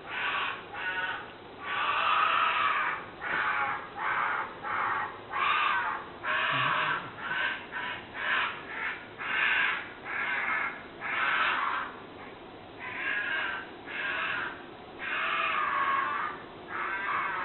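Badger calling: a long run of harsh, rasping cries, about one a second, some short and some drawn out to nearly a second.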